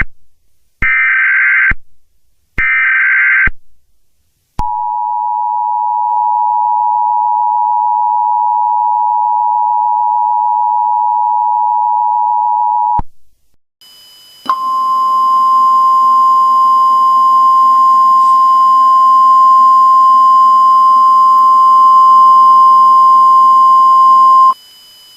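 Emergency Alert System alert: the screechy digital header bursts, two full ones of about a second each, then the steady two-tone attention signal held for about eight seconds. After a short gap a single steady alert tone, a little higher, sounds over a hiss for about ten seconds and cuts off near the end.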